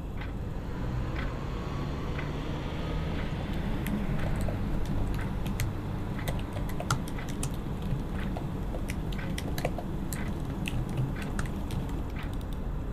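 Quick, irregular clicking of typing on a laptop keyboard over a low steady hum. The clicking starts about three seconds in, after a few slow, even ticks.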